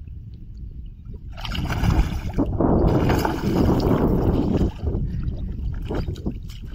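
A rohu, shot with a fishing slingshot and held on its line, thrashing and splashing at the water's surface, loudest from about a second and a half to nearly five seconds in.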